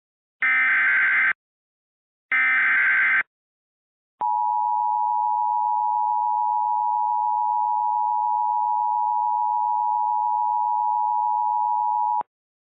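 Emergency Alert System signal: the last two of three SAME header data bursts, each about a second long with a second's gap, then about four seconds in the two-tone EAS attention signal (853 and 960 Hz together), held steady for about eight seconds and cut off sharply. The header codes the tornado warning, and the attention tone announces the voice message that follows.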